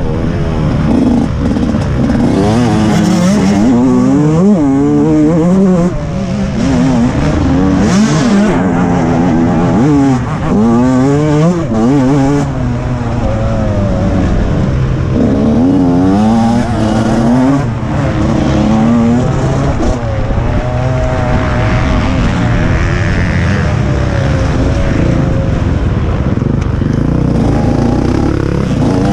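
TM 125 MX two-stroke motocross bike's engine, ridden hard: it revs up and drops off again and again through the gears and corners, loud throughout.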